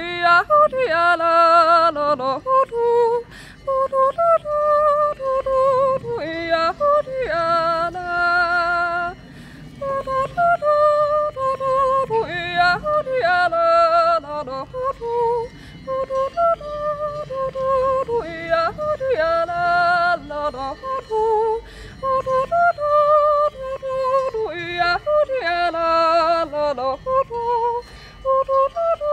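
A woman yodelling a Juitzer, the wordless Central Swiss natural yodel, solo and unaccompanied. Her voice leaps up and down between held, wavering notes in phrases of a few seconds, with short breaths between them.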